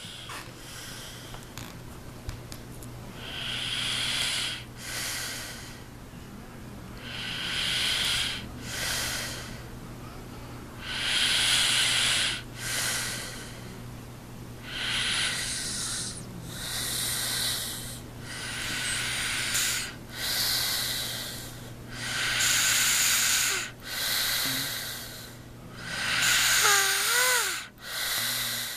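A man who has passed out snoring, each snore a long noisy breath followed by a shorter one, repeating about every four seconds. Near the end one snore breaks into a brief wavering pitched snort.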